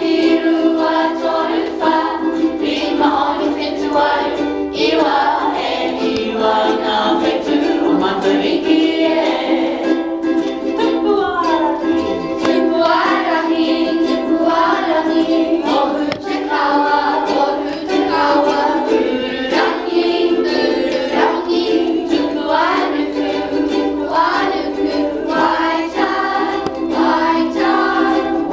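Children's choir singing together, accompanied by ukulele strumming.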